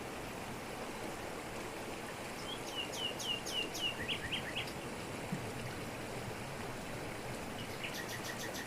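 Waterfall pouring over rocks with a steady rush, while a bird sings a quick series of sharp, downward-sweeping chirps about two and a half seconds in and starts another series near the end.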